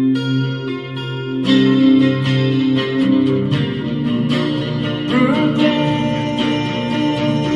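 Electric guitar being strummed, chords ringing with a change of chord about a second and a half in.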